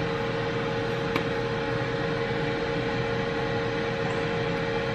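A kitchen appliance's fan running with a steady whirring hum and a constant tone, with one faint click about a second in.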